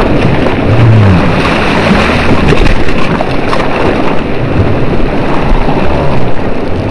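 Steady, loud rushing noise of churning water and wind on the microphone, with no single splash standing out.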